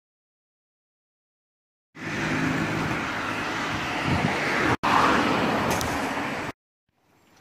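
About two seconds of silence, then road traffic at a street intersection: a car's engine and tyres going by. A split-second dropout comes midway, and the sound cuts off abruptly near the end.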